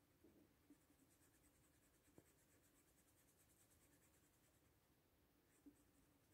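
Very faint scratching of a thin paintbrush working short, quick, repeated strokes of watercolour on paper, with a couple of soft ticks, over near-silent room tone.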